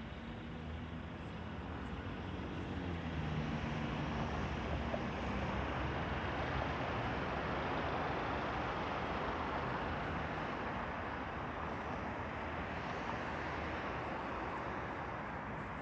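Street traffic: a motor vehicle drives past, its engine note falling in pitch over the first few seconds as it goes by, over a steady wash of tyre and road noise that is loudest around the middle.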